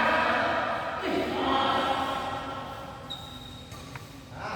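Voices drawn out in two long, held calls, one after the other, with a short sharp click near the end.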